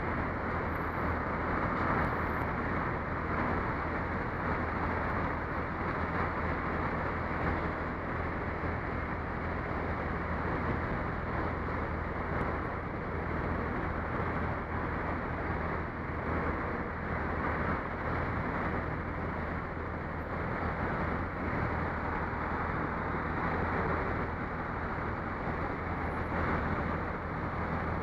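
Steady road traffic at a wet junction: engines and tyre noise on wet tarmac under a constant low hum, heard dull and muffled through a helmet camera's housing.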